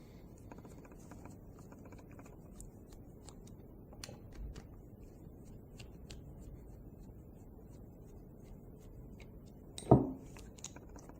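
Small metal engine parts and tools being handled on a workbench: scattered faint clicks and ticks, with one sharp knock about ten seconds in.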